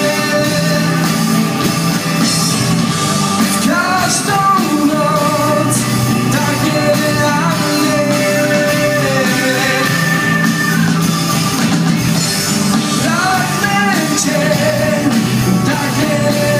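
Live rock band playing at full volume: electric guitars, bass and a drum kit with cymbal crashes, under a singer's voice whose pitch bends up and down, heard from within the audience.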